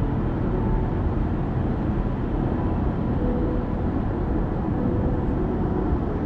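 Car cruising at highway speed, about 110 km/h, heard from inside the cabin: a steady rumble of tyres, engine and wind.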